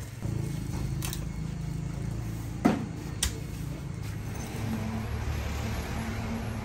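A steady low mechanical hum like a small engine running, with a few sharp knocks over it. The loudest knock comes about two and a half seconds in, and a lighter one follows half a second later.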